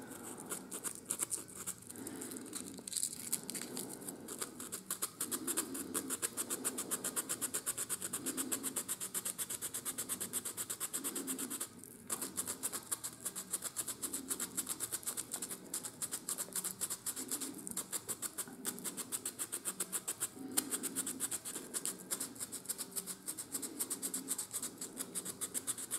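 Hand-sanding the edge of a small hole in a laser-cut wooden engine part with fast, steady back-and-forth scraping strokes, with a brief pause about twelve seconds in. The hole is being smoothed so the piston rod and valve can slide through it with little friction.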